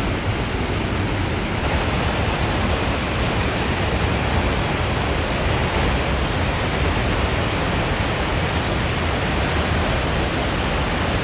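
Koosah Falls, a 70-foot waterfall on the McKenzie River, roaring steadily as a large volume of water crashes into the pool below, a dense, even rush with a heavy low rumble.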